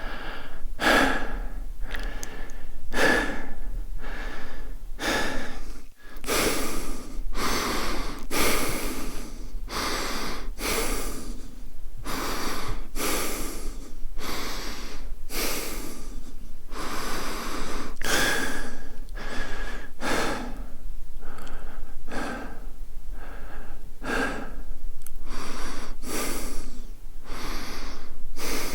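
A man breathing fast and hard, each inhale and exhale following close on the last with only one short break about six seconds in.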